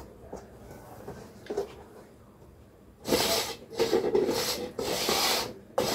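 Plastic party cups slid and scraped across a tabletop as they are shuffled, a run of several rasping strokes starting about three seconds in, after a few faint taps.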